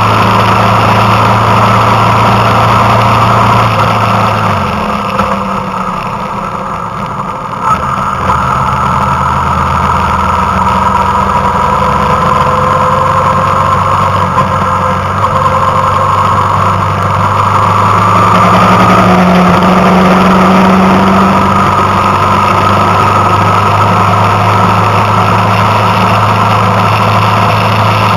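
Vehicle engine running steadily while driving, with the engine note easing off and dropping for a few seconds about 5 s in, then picking up again and rising briefly later on.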